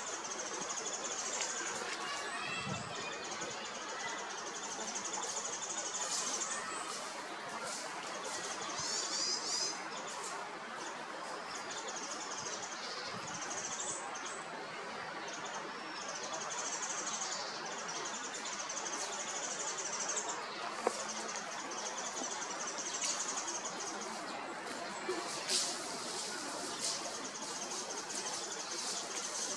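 Woodland ambience: a high, shrill insect buzz that stops and starts, with small birds chirping now and then over a steady background hiss. The perched brown hawk-owl itself does not call.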